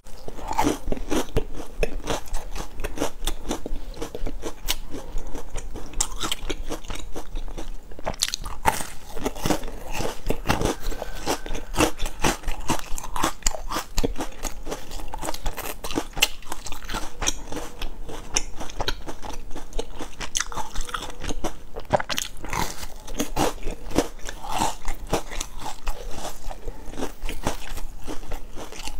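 A person biting into and chewing a large round pumpkin biscuit, with many quick crunches and crackles of the crisp baked dough.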